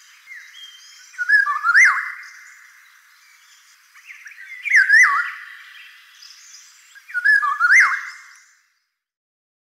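Eurasian golden oriole singing: three short fluty whistled phrases, each a quick swoop down and back up, about three seconds apart, then it stops near the end.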